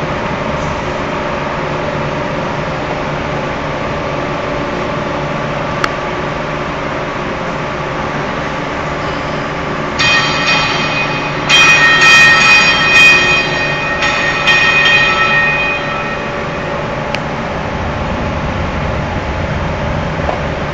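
A machine running with a steady hum. About halfway through, a loud high-pitched whine made of several tones joins it for about six seconds, breaking up and fading near the end of that stretch.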